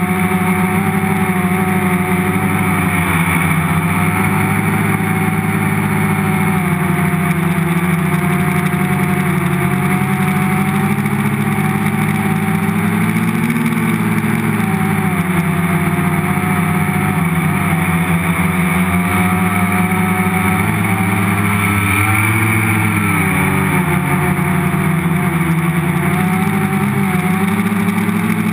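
Electric motors and propellers of a multirotor hovering, heard from the camera mounted on its frame: a steady, buzzing hum whose pitch wavers as the flight controller changes motor speed, dipping briefly a few times.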